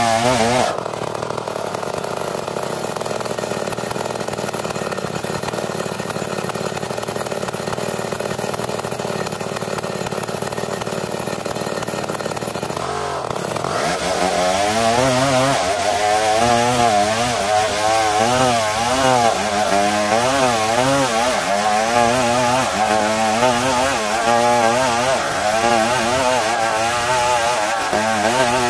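Two-stroke chainsaw ripping lengthwise through a dense Borneo ironwood (ulin) log. For roughly the first half the engine holds a steady pitch. From about halfway its pitch wavers up and down continuously as the chain works in the cut.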